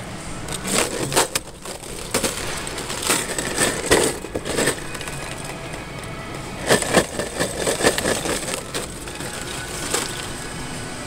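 Handling noise from a boxed string of Halloween lights with a clear plastic window: irregular crinkling, scraping and clicking of the plastic and cardboard, coming in several clusters.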